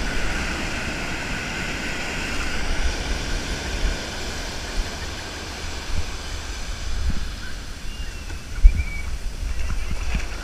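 Ocean surf washing and foaming up the beach, with wind rumbling on the microphone in uneven gusts. A single thump sounds near the end.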